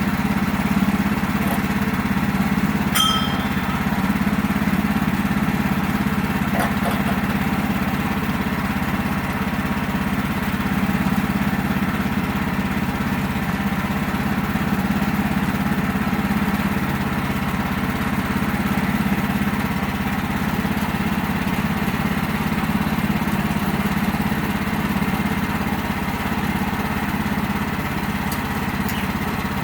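Engine of a portable sawmill running steadily under load as the blade slowly cuts through a log. A brief metallic ding sounds about three seconds in.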